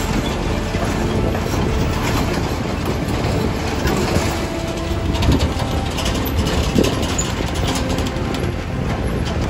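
Diesel semi-trucks pulling bottom-dump trailers driving slowly past, their engines running with a steady rumble.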